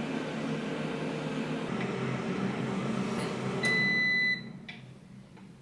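Xiaomi Mi Smart Air Fryer running with a steady fan whir, then a single beep lasting under a second, signalling the end of the cooking program, after which the fan stops.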